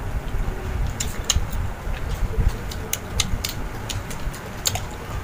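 Mouth sounds of eating crisp unripe green mango: irregular sharp crunches and wet clicks from chewing, over a low steady rumble.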